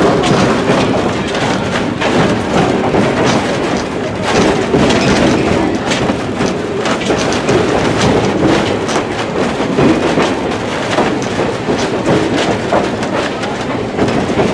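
Passenger train in motion: the steady rumble of the coach riding the rails, with many irregular clicks and rattles from the wheels and car body.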